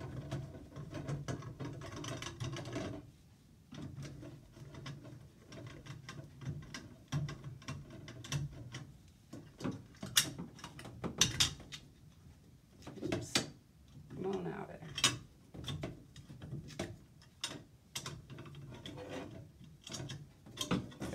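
Phillips screwdriver backing out the long screws of a Delta tub faucet's chrome trim plate: scattered small metal clicks and scrapes. The loose plate is handled near the end.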